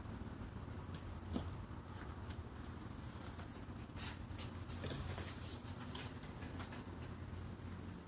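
Grey PVC pipe and black plastic fittings being handled and pushed together on a worktable: scattered light clicks, scrapes and taps, with one sharper knock about a second in, over a low steady hum.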